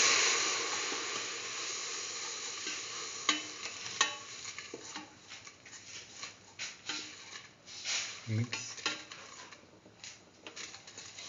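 Lemon juice sizzling and steaming as it hits hot oil and spices in a steel pressure-cooker pot, loud at first and dying away over the first few seconds. Then a spatula scrapes and knocks against the pot as the mixture is stirred.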